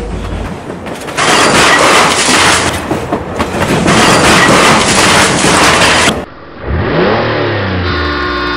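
Vehicle sounds: a loud rushing noise that goes on for about five seconds and cuts off suddenly, then an engine revving up and down, and a horn starting to sound near the end.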